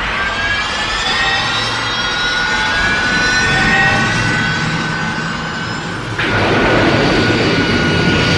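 Mechagodzilla sound effect: a loud, jet-engine-like rushing noise with several high whining tones that glide slowly. About six seconds in, the whine drops away and the noise changes abruptly to a fuller, louder rush.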